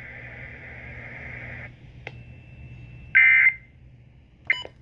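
Radio broadcast of an emergency alert ending: a steady hiss, then a click and a faint high steady tone, then short electronic data bursts, the Emergency Alert System end-of-message (EOM) code, the loudest about three seconds in and a brief one near the end.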